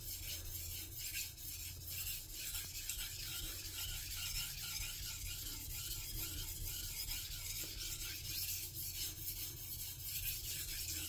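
Steel santoku blade being drawn in repeated strokes across a wet Sakura 2000-grit water stone: a steady rasping scrape, the fine-grit finishing stage of the sharpening.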